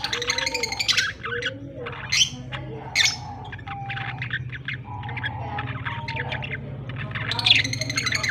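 Budgies chattering with rapid chirps and a few louder squawks over a low steady hum.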